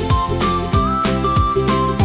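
Upbeat background music: a bright melody line over a steady beat with a deep thump about twice a second.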